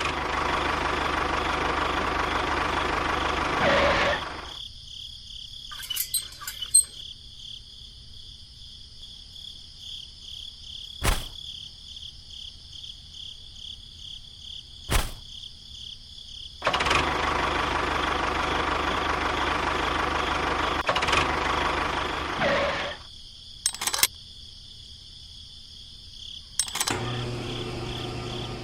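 Small motor of a DIY model construction machine running in two spells, each starting and stopping abruptly, with a steady insect trill and a few sharp clicks in the quieter stretch between.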